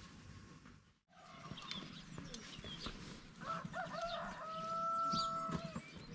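Rooster crowing once, starting about three and a half seconds in and ending on a long held note. Faint chirps of small birds sound around it.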